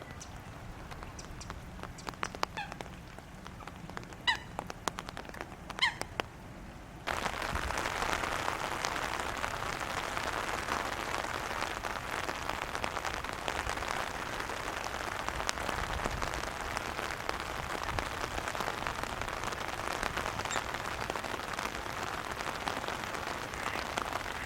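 Many fish gulping at the water surface, a dense patter of small pops and splashes like rain on water: the fish are gasping for air in water starved of oxygen by a blue-green algae bloom. For the first several seconds the patter is sparser and quieter, with a few short bird calls; then it jumps abruptly louder and denser.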